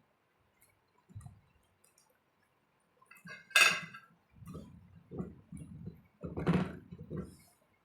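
Close-up eating sounds of rice and curry: a single clink against the plate about three and a half seconds in, then wet chewing at roughly two chews a second.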